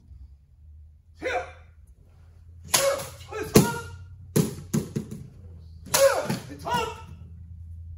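Sword cutting through a standing bamboo pole: a run of about eight sharp cracks and knocks from about three seconds in, as the blade strikes and cut pieces of bamboo fall.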